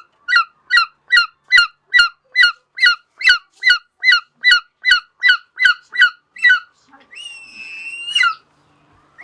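Hawk calling: a fast, even series of about seventeen short calls, each slurring downward, at roughly two and a half a second. About seven seconds in comes one longer call, held on a steady pitch before it drops away.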